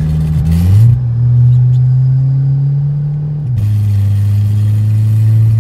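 Volkswagen Jetta 2.0 TSI turbocharged four-cylinder with an aftermarket exhaust diffuser, heard from inside the cabin as it accelerates with a deep exhaust note. The pitch climbs slowly and drops suddenly twice, about half a second in and about three and a half seconds in, as the DSG gearbox shifts up.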